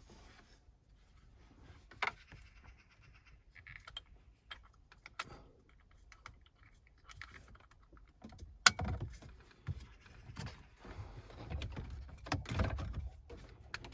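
Car interior trim being reassembled by hand: scattered clicks and light knocks of plastic panels and clips, turning into louder thumps and rustling about two-thirds of the way through.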